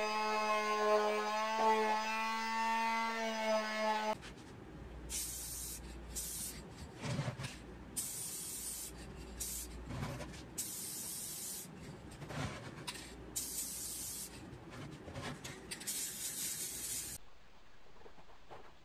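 Electric palm sander running steadily for about four seconds, then stopping abruptly. After that, an aerosol spray can is sprayed in about eight short hisses.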